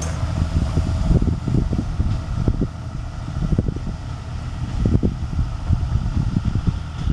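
Class 158 diesel multiple unit pulling away under power, its engine note gradually fading as it draws off, with gusts of wind buffeting the microphone.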